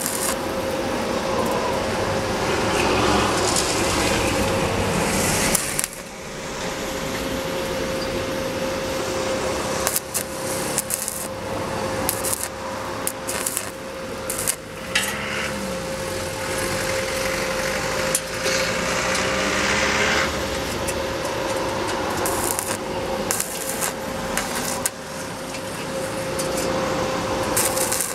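Stick (shielded metal arc) welding on steel: the electrode's arc crackling and sizzling steadily as it lays a bead, with a few sharp pops and a steady faint hum underneath.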